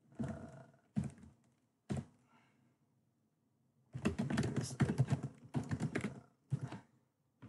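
Typing on a computer keyboard: a few separate keystrokes in the first couple of seconds, then a quick run of keystrokes lasting about two seconds, starting around four seconds in.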